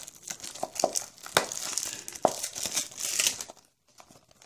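Cardboard blind-bag book being opened by hand: packaging crinkling and rustling with several sharp crackles, stopping about a second before the end.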